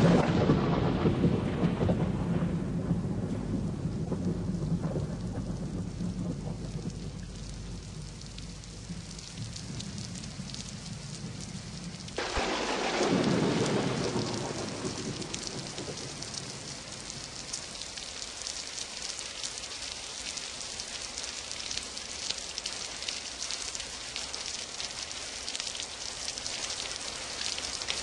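Thunder and steady rain. A sudden thunderclap right at the start rumbles away over several seconds, and a second rumble of thunder comes about twelve seconds in.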